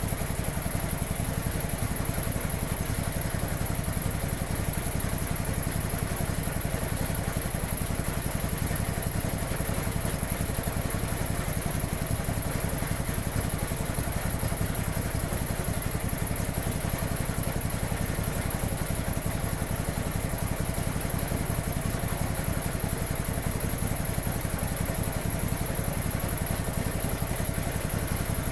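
1950s Quincy 320 air compressor pump running steadily at about 700 rpm, driven by a 3 hp electric motor, with a fast, even beat.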